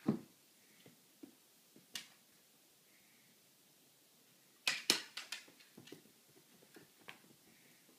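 A dog and a cat scuffling as they play-fight on a rug: a soft thump right at the start, a tap about two seconds in, and a quick flurry of sharp scrapes and taps from paws and claws about five seconds in, then light shuffling.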